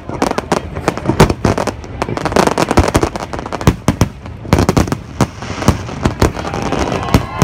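Aerial fireworks display: many sharp bangs and cracks of bursting shells in quick, irregular succession, with the crackle of gold crackling stars.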